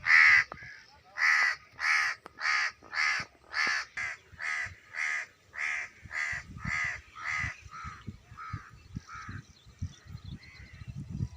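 A bird giving a long run of harsh, repeated calls, about two a second, the first the loudest and the rest fading out after about nine seconds.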